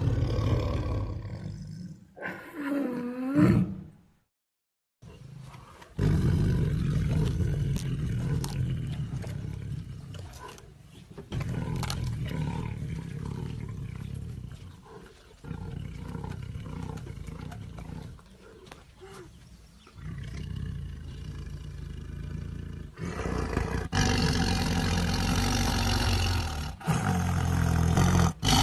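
Tigers roaring and growling in a string of separate recordings, deep and rough. There is a short sweeping cry a couple of seconds in, a brief silence about four seconds in, and a louder bout of roaring near the end.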